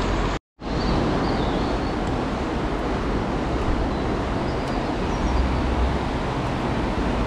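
Steady rushing of flowing stream water with a low rumble underneath, broken by a brief cut to silence less than a second in.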